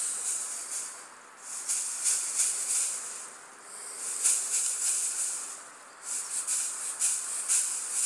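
Crinkly rustling of a metallic tinsel pom-pom toy shaken through the leaves of a shrub, in four bouts of quick crackling with short pauses between them.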